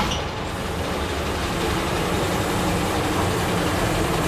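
1950 Studebaker Bullet Nose's flathead straight-six engine idling steadily, just after being started.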